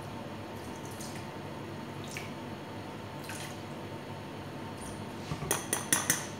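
White vinegar dripping from a spoon into a stainless steel mixing bowl, a few faint drops, then the metal spoon clinking several times against the steel bowl near the end.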